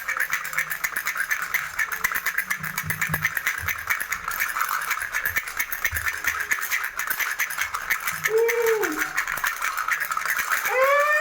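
Baby rattle shaken continuously, a fast dense rattling of small beads. Short squeaky tones that rise and fall come twice, about eight seconds in and near the end.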